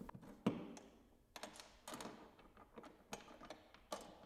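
Faint, irregular clinks and taps as the workbench's leg assembly parts and tools are handled and fitted together, about eight sharp knocks over a few seconds.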